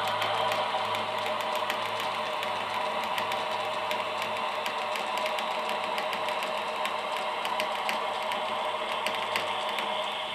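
HO scale model railroad turntable rotating under its electric drive: a steady motor hum with rapid, fine ticking from the gearing.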